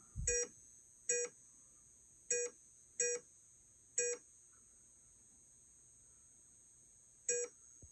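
Short electronic beeps from the pinball board set on test, one each time an opto switch is blocked or unblocked as a block of wood slides between the optos: the sign that the opto board is registering each switch. Six identical beeps come at uneven spacing, with a long gap between the fifth and the last.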